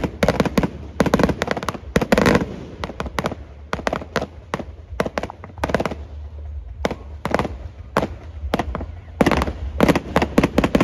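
Fireworks finale barrage: rapid, overlapping bangs and crackles of shells going off many to the second over a low rumble. The bangs thin out past the middle and pick up again near the end.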